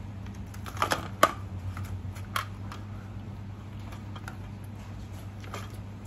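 Scattered short clicks and taps of handling as a baby monkey scrambles in a wicker basket and is held. The loudest is a sharp click about a second in, with another a second later, over a steady low hum.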